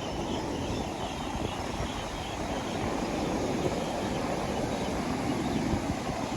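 Ocean waves on a beach: a steady, deep rush of surf with no separate breaks standing out.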